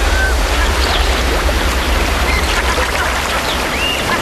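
Sea water washing and lapping over seaweed-covered shore rocks, with a few short high whistled calls over it; the clearest is an arching whistle a little after three and a half seconds.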